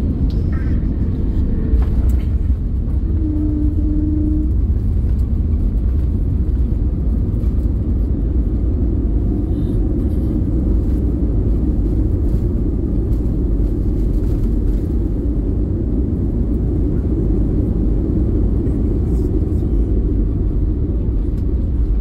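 Cabin noise of an Airbus A320neo landing and rolling out on the runway: a steady low rumble from the wheels and engines. A knock comes about two seconds in and two short tones follow a little later, and the ground spoilers are up for the rollout.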